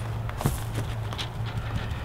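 A few taps of a wet sponge with a scouring pad dabbed against a stucco wall, working caulk into a crack, over a steady low hum.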